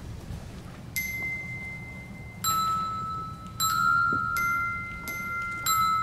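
Opening of a music track: slow single bell-like notes, glockenspiel-like, struck one at a time about once a second and each left ringing, starting about a second in.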